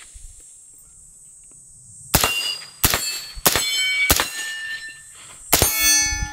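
FoldAR MoBetta AR-15 in .223 Wylde firing semi-automatic through a HUXWRX flow-through suppressor, with its adjustable gas set to the unsuppressed setting so it cycles. About five shots at a steady pace of roughly one every two-thirds of a second begin about two seconds in. Each shot is followed by the ring of a hit steel target.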